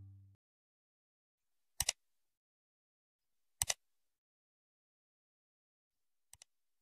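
Computer mouse-click sound effects over near silence: two sharp double clicks about two seconds apart, then a faint double click near the end. The last note of a music jingle dies away at the very start.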